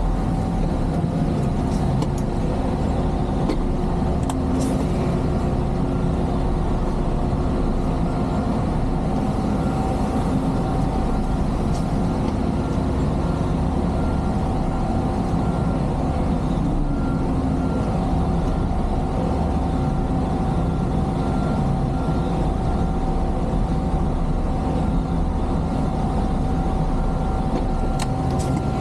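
Semi truck's diesel engine running steadily at low speed, heard from inside the day cab as the truck manoeuvres slowly in reverse. A continuous drone with a constant steady tone in it.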